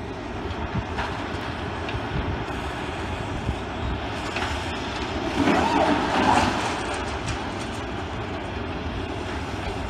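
A tracked demolition excavator at work, its diesel engine running steadily under the noise of its hydraulic crusher jaws breaking up concrete terracing, with scattered knocks. The noise grows louder for a second or so around the middle.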